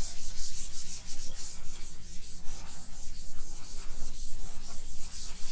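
A chalkboard duster rubbing chalk off a chalkboard in rapid, repeated back-and-forth strokes: a dry rubbing that goes on without a break.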